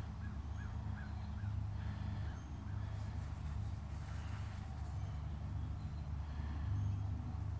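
A vehicle engine running with a steady low hum, and a quick run of short high chirps over it in the first second or so, with another a little after.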